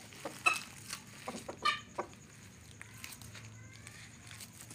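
Rooster clucking: two short clucks about half a second and just under two seconds in, the first the louder, with a few faint ticks around them.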